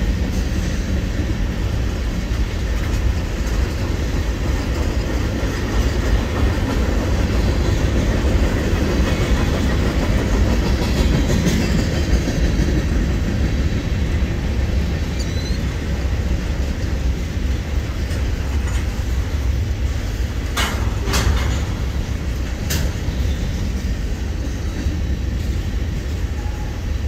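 Freight cars of a passing train rolling by: a steady rumble of steel wheels on the rails, with three sharp clanks about two-thirds of the way through.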